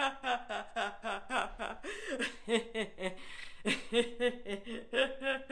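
A woman laughing hard and continuously in quick pitched bursts, with a breath drawn in about three seconds in. It is deliberate laughter-yoga laughing, acted as laughing too hard to speak.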